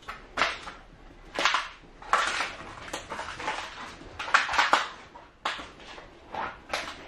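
Footsteps crunching and scuffing on a debris-strewn floor: about seven irregular gritty crunches.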